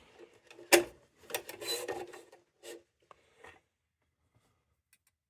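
Metal lantern parts being handled and fitted together: a sharp click about a second in, then scraping and rubbing, and a few light taps.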